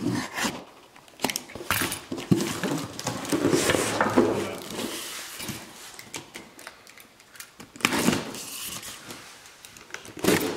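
Utility knife slitting the packing tape along the seams of a long cardboard box, in irregular scraping strokes, with the cardboard rustling as it is handled.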